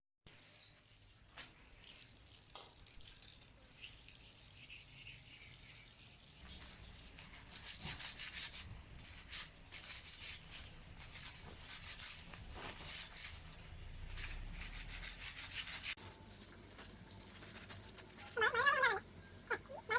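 Stiff brush scrubbing rusty metal in irregular strokes, getting busier about a third of the way in. Near the end comes a short wavering pitched call, the loudest sound.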